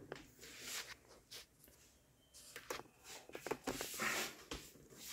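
Faint scattered rustling and a few light clicks, mostly in the second half: handling noise from the camera being moved.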